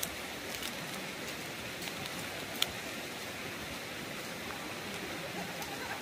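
Steady, even hiss of water from a mountain stream and falling rain, with a few faint ticks, the sharpest a little over two and a half seconds in.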